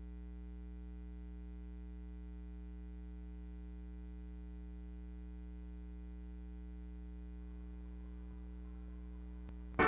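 Steady electrical mains hum, a low buzz with many overtones, unchanging throughout, with a faint click near the end.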